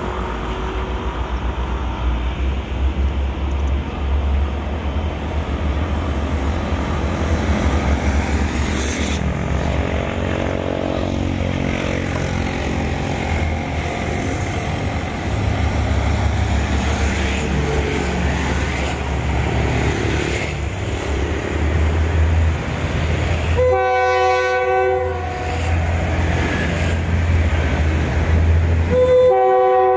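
State Railway of Thailand diesel railcar train approaching slowly, its engine rumbling steadily. The horn sounds twice near the end: one blast of about a second and a half, then a second one starting just before the end.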